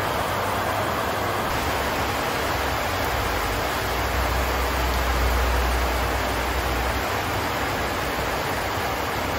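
Steady hiss of heavy rain falling, with a low rumble swelling for a few seconds in the middle.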